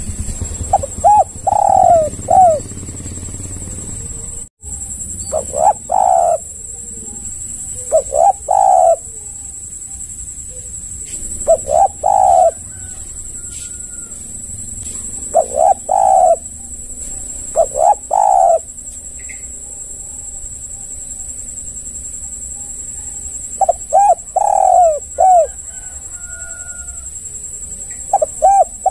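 Spotted dove cooing: short phrases of two to four coos, repeated every few seconds.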